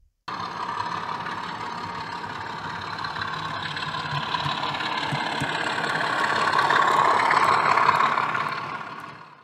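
OO gauge model train running past on the track: a steady rumble of motor and wheels that swells toward the end and then fades out.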